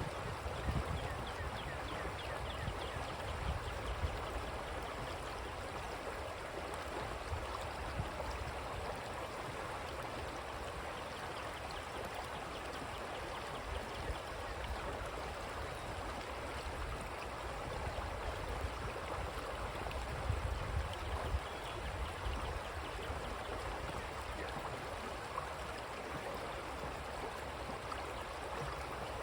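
Creek water flowing in a steady rushing, gurgling stream, with a few brief low rumbles near the start and again about two-thirds of the way in.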